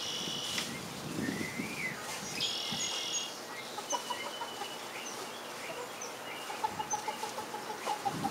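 Backyard chickens calling, with short high-pitched bird chirps and a quick run of short repeated notes near the end; no full crow.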